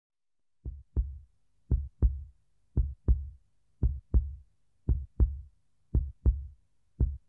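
Heartbeat sound effect: paired low thumps, lub-dub, repeating steadily about once a second, seven beats in all.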